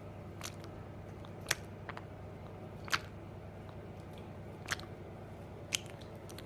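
Five sharp crunching clicks, like bites into something hard, spaced about a second apart, over a steady low hum.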